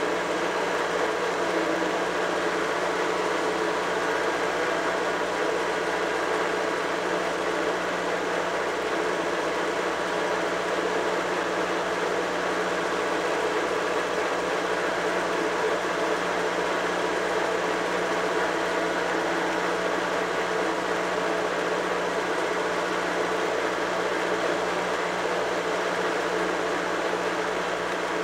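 Tractor engine running steadily at road speed, heard on board from close beside its upright exhaust pipe.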